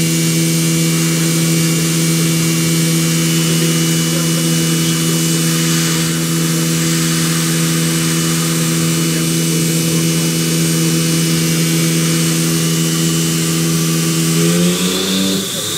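CNC vertical machining centre's spindle running an end mill over a hardened C45 steel block: a steady machine hum with a hiss over it. About a second before the end the pitch glides upward and settles at a new pitch, a spindle speed change as the cutter reaches the steel.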